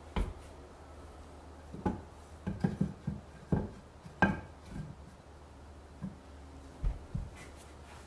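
Irregular knocks and thumps on wooden attic joists, with some rubbing and rustling, as a person moves about among the joists and insulation. They come in an uneven cluster, most of them in the first half.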